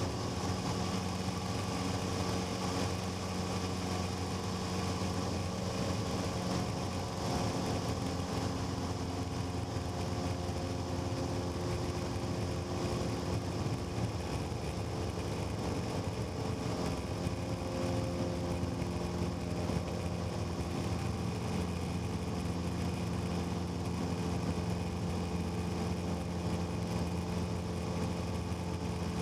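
Cessna 150's Continental O-200 four-cylinder engine and propeller running steadily at an even speed.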